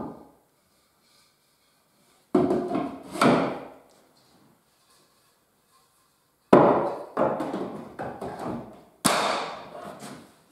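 Wooden knocks of tulip wood (poplar) door rails, stiles and panel being pushed together by hand as the mortise and tenon joints of a Shaker door frame are fitted. There are two knocks about two seconds in, then a run of knocks from about six and a half seconds.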